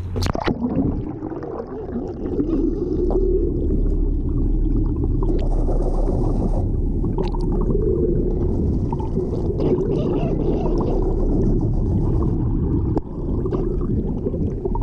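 Muffled underwater rumble and gurgling of water around a submerged camera, steady throughout. It is set off by a sharp splash right at the start as the camera goes under.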